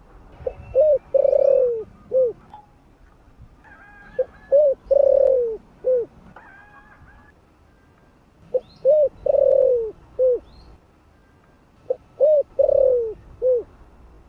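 Spotted dove (cu gáy) cooing its territorial call four times, about every three and a half seconds. Each phrase is two short coos, a longer coo that falls in pitch, then a last short coo.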